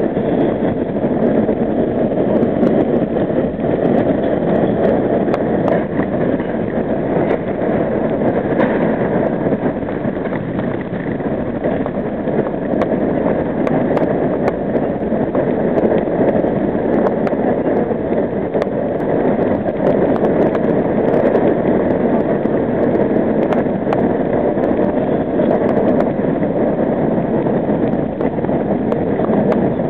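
R38 subway car running at speed through a tunnel: a steady, loud rumble of steel wheels on rail, with a few faint clicks scattered through.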